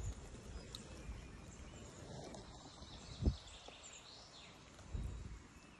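Light rain and outdoor ambience with faint bird chirps, and a single dull bump about three seconds in.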